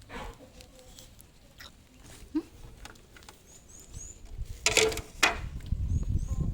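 Roasting peanuts being turned in a pan: scattered light rattles and scrapes, with two louder clatters close together about four and a half to five seconds in. Faint high bird chirps sound now and then.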